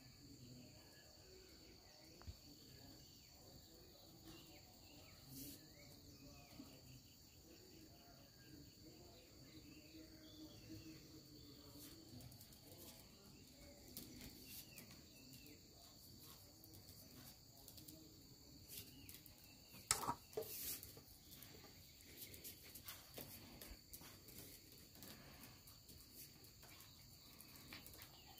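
Near silence with a faint, steady, high-pitched insect chirring. A short run of sharp clicks comes about two-thirds of the way through.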